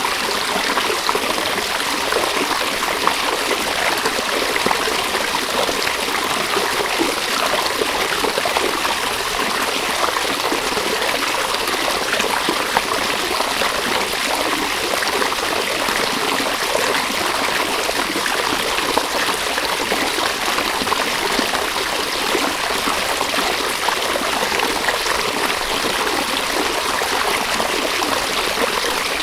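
River water running steadily: an even, continuous rush of flowing water with no breaks or changes.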